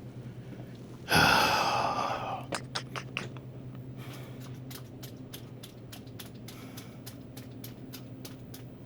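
A loud breath out close to the microphone about a second in, fading over a second or so. It is followed by a run of light, irregular clicks over a steady low electrical hum.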